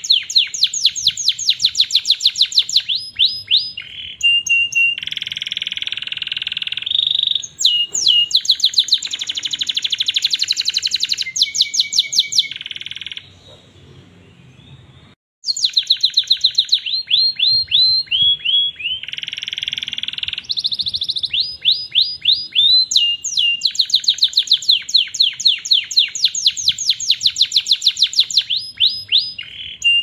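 Domestic canary singing a long song of fast repeated rolls and trills mixed with buzzy held passages. It goes quiet for about two seconds around the middle, then starts again.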